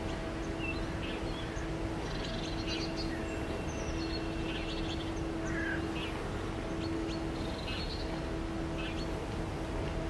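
Outdoor ambience of a steady low hum, with short bird chirps scattered throughout.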